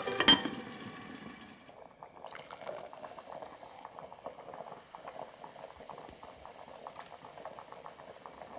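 A glazed ceramic lid clinks sharply on its clay pot as it is lifted, then a dark fizzy drink is poured into a tall glass, the pour fizzing and crackling with bubbles as the foam rises.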